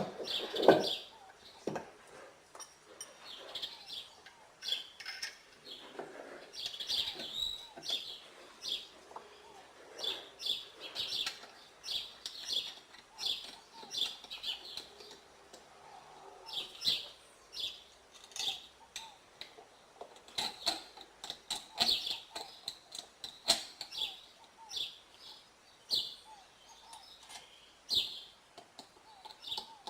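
Birds chirping repeatedly in short calls, with occasional sharp clicks and knocks.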